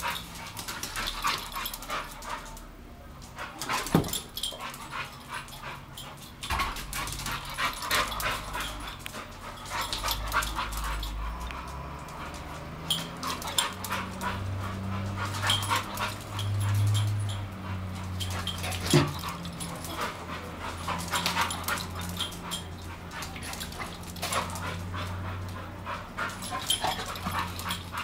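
Pit bull chasing a laser dot, panting, with many sharp clicks and scuffles of its movement throughout. A low hum comes in about six seconds in.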